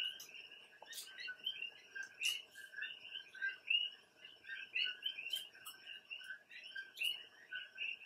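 A chorus of coqui frogs giving their two-note chirping calls over and over, many overlapping, with a few light clicks of a fork on a plate.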